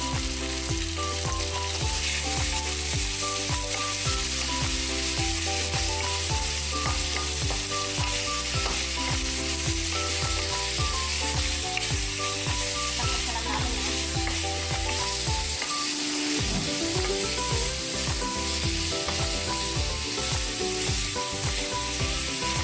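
Raw chicken wings sizzling in hot oil with garlic and onion in a wok, stirred and turned with a wooden spoon. Background music with a steady bass plays underneath.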